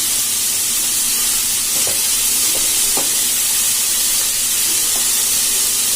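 Chopped onion, tomato, carrot and beans sizzling steadily as they sauté in hot oil in a pan, with a few light clicks of a spoon stirring.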